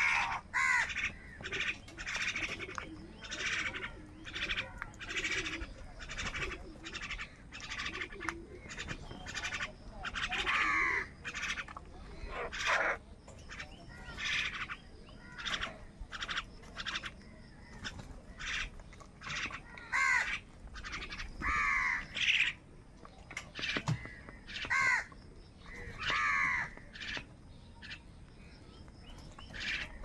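A flock of house crows cawing over and over, harsh calls following one another several times a second, some longer and bending in pitch, as they squabble over food.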